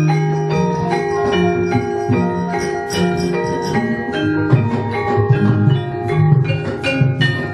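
Javanese gamelan playing a brisk piece for a shadow-puppet battle scene: bronze metallophones ring out a quick, steady run of struck notes, with sharp percussive accents throughout.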